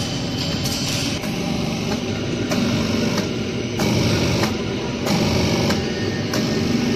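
Hydraulic wheelset press at work: the steady hum of its electric hydraulic pump, with scattered sharp clicks and knocks from the machine.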